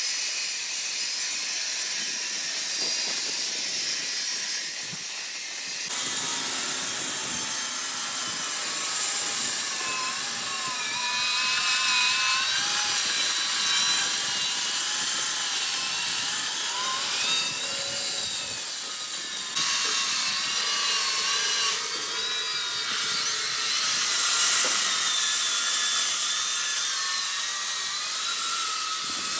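Diamond-blade concrete-cutting saw cutting reinforced concrete, running continuously with a high whine that wavers in pitch as the blade is loaded.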